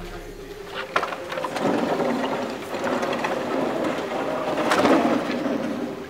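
Scrap debris clattering and rustling as it is handled and tossed, with the loudest clatter about five seconds in.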